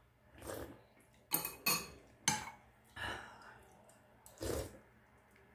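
A spoon clinking against a porcelain bowl during eating: three sharp clinks between about one and a half and two and a half seconds in, with softer mouth sounds of eating before and after.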